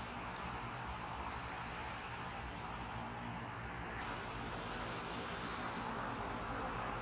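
Small birds chirping: a few short, high whistled notes in scattered groups, over a steady outdoor hiss.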